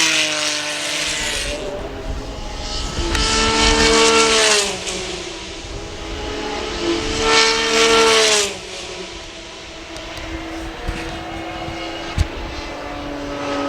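Formula 3 cars' 3.4-litre Mecachrome V6 engines passing at speed one after another, loudest about four and eight seconds in, the pitch falling as each goes by, then running more distantly.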